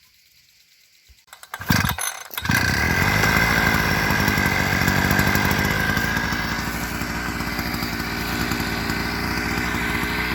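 Petrol brush cutter (weed whacker with a metal blade) starting up about two seconds in after a few short sputters, then running steadily at high throttle, easing a little after a few seconds.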